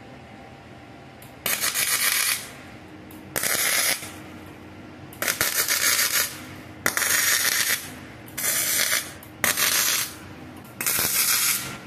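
MIG welding arc crackling and sizzling in about seven short bursts, each half a second to a second long, as the welder lays short welds. The wire is flux-core, run under C25 shielding gas.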